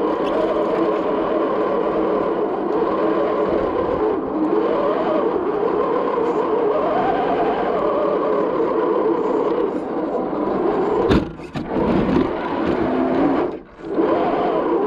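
Electric motor and gearbox of an Axial SCX10 II 1/10-scale RC crawler whining as it crawls, the pitch rising and falling with the throttle. A sharp knock comes about eleven seconds in, and the motor drops out briefly twice near the end.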